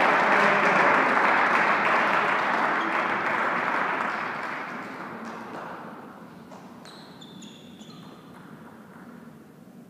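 A small crowd of spectators applauding the end of a point in a table tennis match, the clapping dying away by about halfway through. A few short high squeaks or pings follow near the end.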